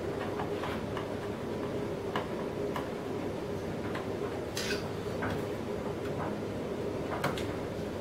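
Scattered light clicks and taps at irregular intervals, from hand work on the motorcycle's plastic belly-pan rivets, over a steady hum.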